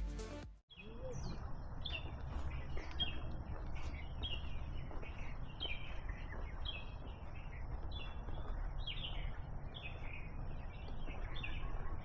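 A bird chirps over and over in short, falling calls, about one or two a second, over a steady low background rumble. Music cuts off at the very start.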